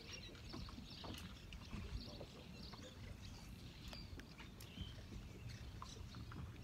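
Faint open-water ambience around a fishing boat: a steady low rumble of wind and water, with scattered light clicks and small high chirps of birds.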